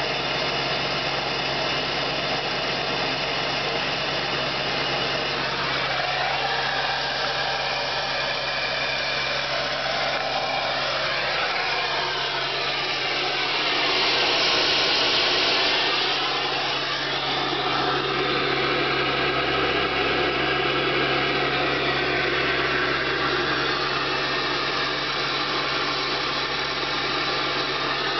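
2001 Ford F-250's 7.3-litre Power Stroke turbo-diesel V8 idling steadily at the tailpipe, still warming up after a cold start. It grows louder for a couple of seconds about halfway through, as the microphone comes close to the exhaust tip.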